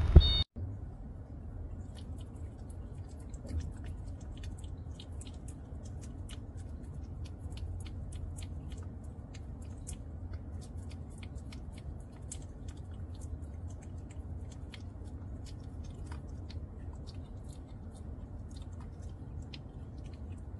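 Kitten eating from a small dish: faint, irregular chewing clicks, several a second, over a low steady hum. A louder snatch with beeping tones cuts off about half a second in.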